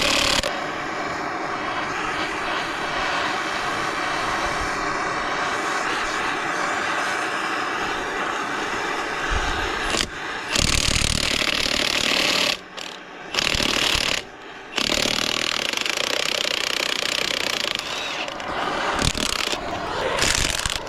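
Torch flame hissing steadily as it heats rusted, seized wheel nuts, with two short breaks a little past halfway.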